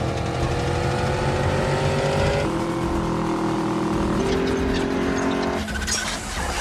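A 1956 Ford Fairlane's engine held at high revs under full throttle. Its pitch climbs slowly, then drops and jumps in steps about halfway through and again near the end.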